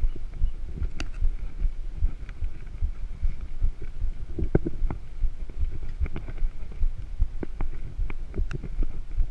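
Mountain bike rolling along a cracked concrete road: a low rumble with irregular thumps and sharp clicks and rattles as the bike and camera jolt over the surface.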